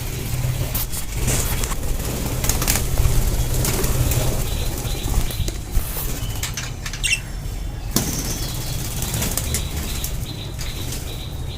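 Budgerigars in a colony aviary fluttering and flapping their wings in many short bursts, with a few brief high chirps, over a steady low rumble.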